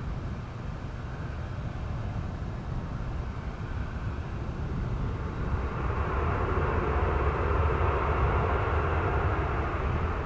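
Boeing 787 Dreamliner's twin jet engines running as the airliner rolls along the runway after touchdown, a steady rumble that grows louder about five seconds in and holds.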